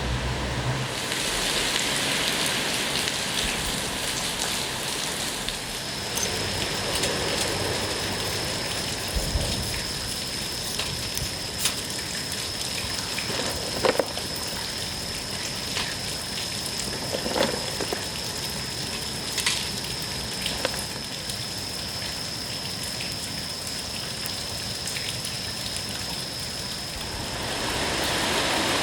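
Steady rain falling, with a few scattered sharp knocks and a thin steady high-pitched whine that starts about six seconds in.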